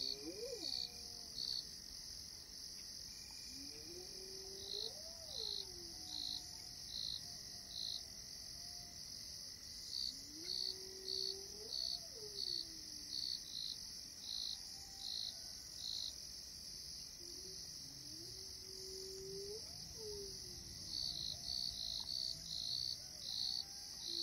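Crickets and other insects chirping, a steady high hiss with runs of short loud chirps about two a second. Underneath, a faint lower call rises and then falls, repeated every five to eight seconds.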